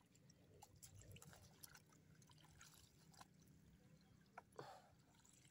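Near silence, with faint splashes and drips of muddy water as a plastic basin scoops through a shallow ditch; a slightly louder splash comes near the end.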